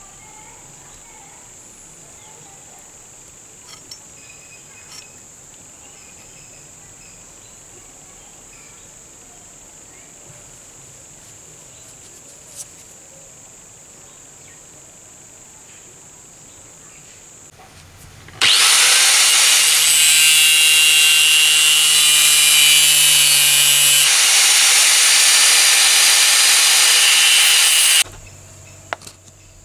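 A power tool's motor spins up and runs loudly for about ten seconds, then cuts off abruptly. Before it there is only faint, steady high cricket chirring with a few small scrapes.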